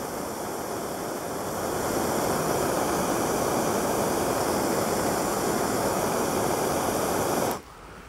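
Handheld gas torch on a yellow cylinder burning with a steady hiss as it heats the blades of pruning shears, louder from about a second and a half in, then cut off abruptly near the end.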